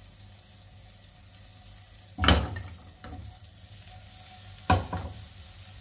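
A tablespoon of butter sizzling as it melts and foams in a non-stick pan, a steady soft hiss. Two sharp knocks cut through it, about two seconds in and again near the end, the first the louder.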